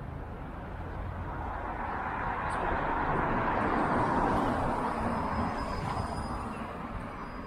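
A vehicle passing along the street: its noise swells to a peak about four seconds in, then fades away.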